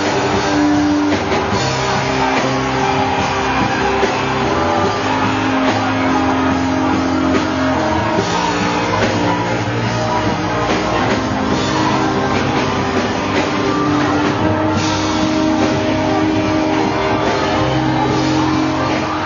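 Rock-style band music with guitar and drums, with notes held over a steady level.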